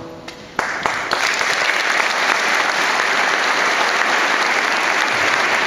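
The last note of the music fades, and about half a second in a large audience breaks into applause that stays loud and steady.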